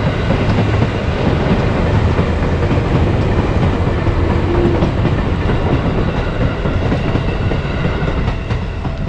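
Seibu Railway electric train running on the rails: a steady rumble with the rapid clatter of wheels over the track, and a brief faint tone about four and a half seconds in.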